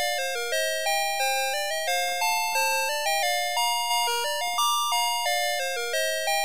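Navystar Press N Go fire truck toy's sound chip playing a beeping electronic tune. The notes are short and come about three a second, each fading a little before the next.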